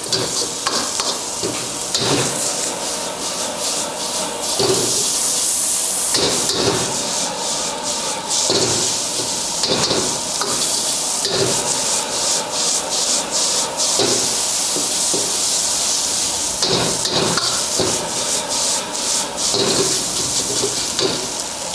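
Metal wok ladle scraping and tossing fried rice around a hot wok, with repeated scrapes roughly once a second over a steady sizzle of frying.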